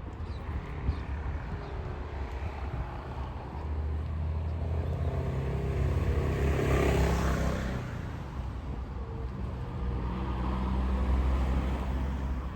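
Street traffic: a car passes close by, its tyre and engine noise swelling to a peak about halfway through and fading. Near the end another vehicle with a heavier low engine rumble rises and falls.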